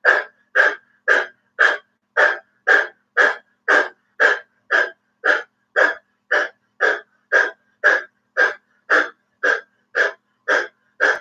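A woman panting hard through her wide-open mouth with her tongue stretched out, the 'dog breath' pranayama: even, rapid, deep breaths at about two a second, driven from the belly and the back of the throat.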